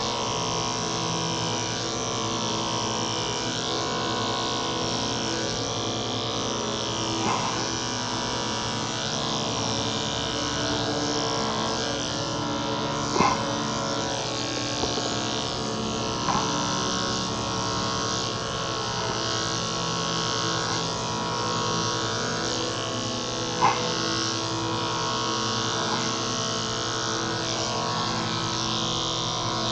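Electric dog grooming clippers running with a steady motor hum while trimming under a cocker spaniel's leg and paw. A few brief, sharper sounds stand out over the hum.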